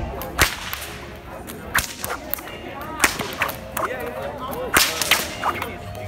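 Bullwhips cracking: about nine sharp, irregularly spaced cracks, some in quick pairs, as several whips are thrown.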